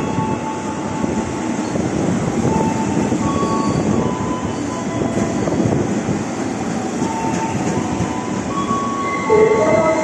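Ex-JR East 205 series electric commuter train running on rails: a steady rumble of wheels and running gear with short high-pitched wheel squeals coming and going. About nine seconds in it grows louder, with a cluster of wavering tones.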